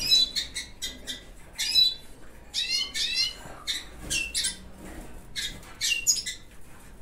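Caged siskins at the nest giving rapid, high-pitched chirps and squawks in short bursts every second or so, as the female takes drops of water offered on a spoon for her chicks.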